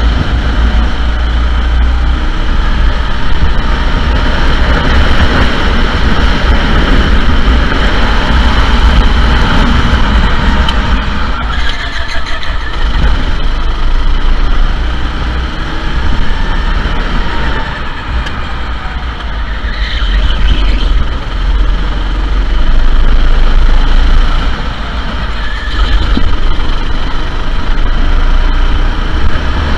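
Sodi SR4 rental go-kart engine running hard, its pitch rising and falling as it revs, over a heavy low rumble.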